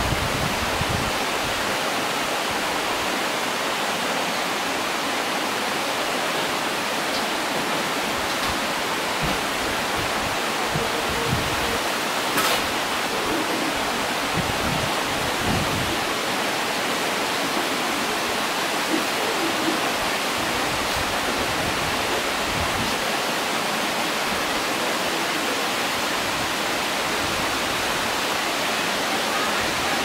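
Waterfall: falling water rushing steadily and evenly, loud and unbroken.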